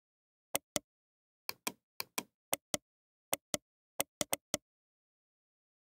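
Computer mouse clicks: about fourteen short, sharp clicks, mostly in quick pairs about a fifth of a second apart, against dead silence.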